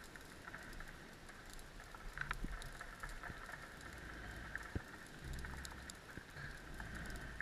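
Faint underwater ambience on a rocky reef: scattered small clicks and crackles over a steady hiss, with a low hum for about a second a little past the middle.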